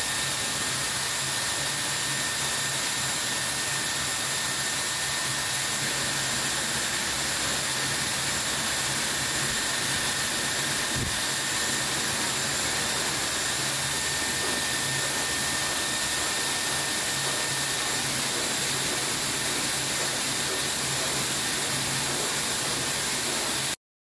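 Handheld blow dryer running steadily, blowing air over a wet Pomeranian's coat, with a thin steady whine over the rush of air. It cuts off suddenly near the end.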